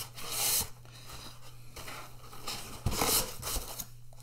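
Cardboard box and its packaging being handled and pulled apart: rustling and scraping, with two louder bursts, about half a second in and about three seconds in.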